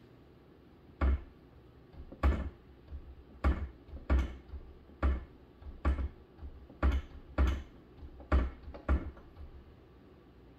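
Dry-erase marker writing on a whiteboard: a string of short taps and scrapes, roughly one or two a second, each with a dull knock from the board.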